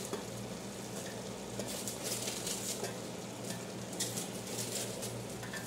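Chicken and carrot strips sizzling in a large aluminium pot as shredded cabbage is tipped in from a bowl, the leaves rustling and crackling as they land. A steady low hum runs underneath.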